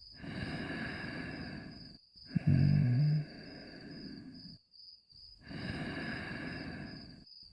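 Snoring in a slow rhythm: a long noisy breath, then a louder snore with a low rumble about two and a half seconds in, and another long breath near the end.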